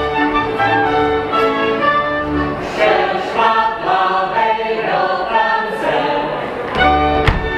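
Live Czech folk band with double bass playing dance music. About three seconds in, the bass drops out and voices carry the tune in song. Near the end the full band comes back in with a single sharp crack.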